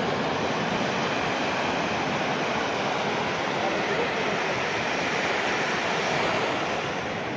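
Sea surf breaking and washing up a sandy beach: a steady, even rushing of water.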